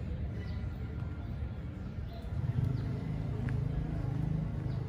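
City street ambience: a steady low traffic rumble that swells louder in the second half, with a few faint bird chirps.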